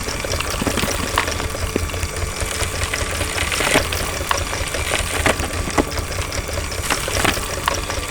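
Heavy logging machinery engine running steadily with a low, pulsing rumble, with irregular clanks and knocks throughout.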